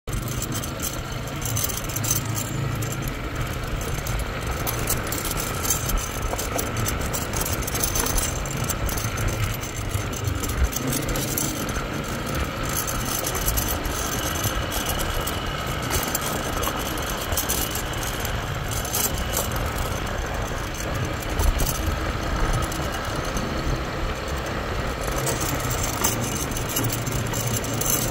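Motor scooter ridden slowly along a rough dirt and gravel road: a steady low engine and road rumble with rattling over the bumps, and wind rushing past.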